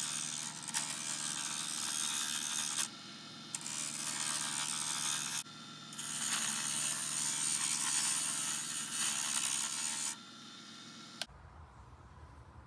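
Wood lathe spinning a spalted wood pen blank while a turning tool cuts it down, making a steady scraping hiss over the hum of the lathe. The cutting breaks off briefly twice and ends near the end, leaving a quieter hum.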